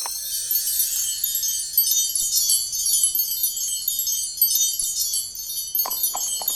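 Cartoon magic sound effect: a continuous shimmer of high, tinkling wind-chime-like tones. Near the end come a few short hoof-like clops.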